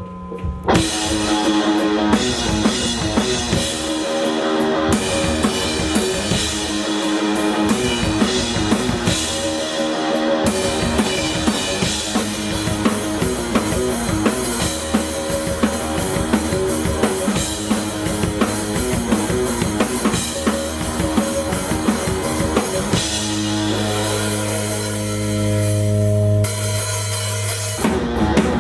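A live rock band playing: a drum kit drives the beat under bass and electric guitar, kicking in abruptly under a second in. A strong, held low bass note swells from about 23 to 26 seconds.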